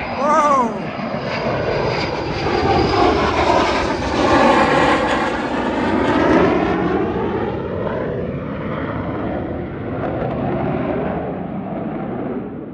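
Military fighter jet on landing approach passing low overhead: a loud jet roar that builds, peaks about four to six seconds in with a sweeping, phasing whoosh as it goes by, and then slowly fades. A short chirp that rises and falls in pitch sounds right at the start.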